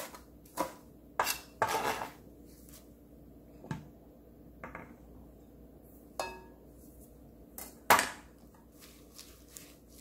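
Sparse, irregular knocks and clatters of kitchen utensils: a knife on a plastic cutting board and a wooden spatula knocking against a glass mixing bowl. There are about ten separate knocks, the loudest about eight seconds in.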